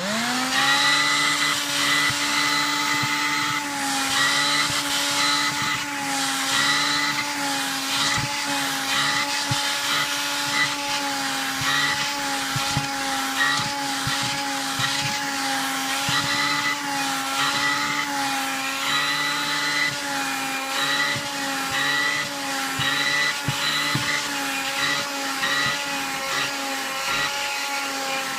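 AEG Rapido handheld vacuum cleaner switched on, its motor whining up to speed within about half a second, then running steadily while sucking dog hair off fabric sofa cushions. The whine wavers slightly in pitch from time to time.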